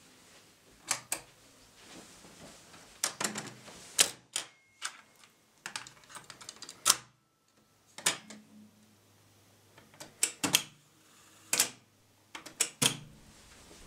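Mechanical clicks and clunks of a 1974 Sony TC-177SD cassette deck being worked by hand: its cassette door is opened, a cassette is loaded and the door shut, and its metal piano-key transport buttons are pressed. The sharp clicks come in irregular clusters, loudest about four and seven seconds in.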